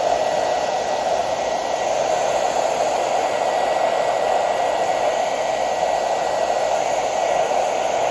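Handheld blow dryer running steadily with a constant rushing noise and a faint high whine, heating a plastic panel to soften it for bending.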